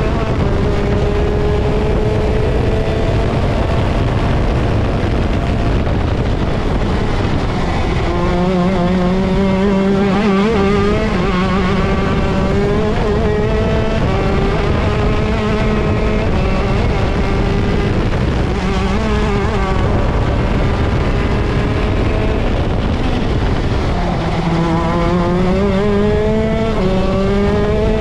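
Vortex ROK Shifter 125cc two-stroke kart engine running hard on track, its pitch rising and falling through the corners. Near the end it climbs twice, each climb cut by a sudden drop in pitch as the driver upshifts the gearbox.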